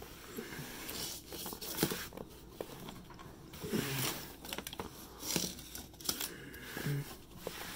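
Irregular rustling, scraping and scattered soft clicks of handling close to the microphone, as someone rummages on a wooden floor searching for something.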